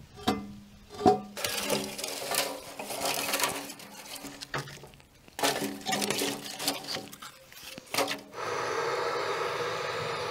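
A heavy cast-iron skillet clanks down twice onto a steel wood-fired stove, ringing, followed by scraping and clattering at the stove's sheet-metal firebox. Near the end a steady rushing hiss starts, as of a butane torch flame.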